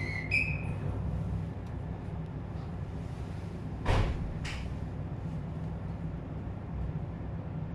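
Steady low hum of a JR East 719 series electric train standing at a station before its doors close, with a short two-tone electronic beep in the first second and two brief knocks about four seconds in.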